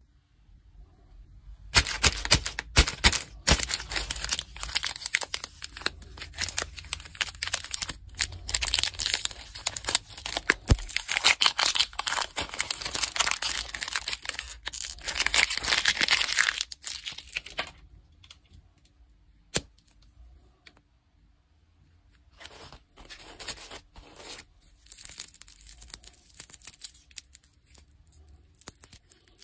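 Plastic chocolate-bar wrapper being torn open and peeled back by hand: dense crinkling and crackling with sharp snaps, lasting about sixteen seconds. After a short quiet pause, softer crinkling of a lollipop wrapper.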